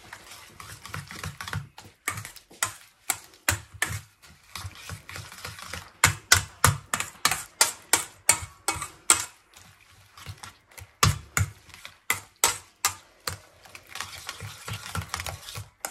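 Wire whisk beating eggs with chopped moringa leaves and onion in a stainless steel bowl: an uneven run of clicks and scrapes as the wires strike the metal, about two to three strokes a second.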